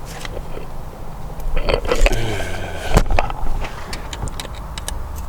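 Hand tools clinking and scraping on the metal of a cylinder head as a camshaft bearing cap stuck down with sealant is worked loose, with one sharp knock about three seconds in.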